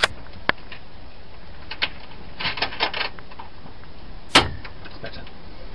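Scattered sharp clicks and knocks from hands working at the equipment panels: single clicks, a quick cluster of several about two and a half seconds in, and the loudest click at about four seconds. A steady low hiss runs under them.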